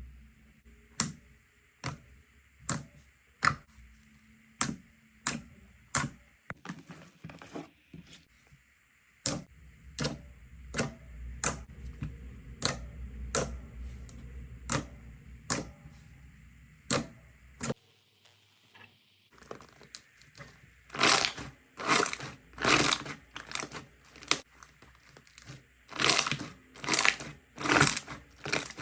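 Slime being pressed and worked by hand, popping with sharp clicks about twice a second, then, from about 20 seconds in, louder and denser crackling pops in quick clusters.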